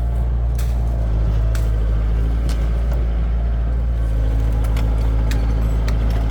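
Heavy vehicle engine running steadily at a constant speed, with occasional sharp clicks and knocks over the hum.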